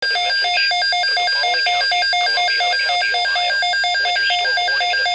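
A loud electronic alert tone beeping rapidly at about five beeps a second. Each beep stacks several steady pitches, giving a shrill, telephone-like ringing.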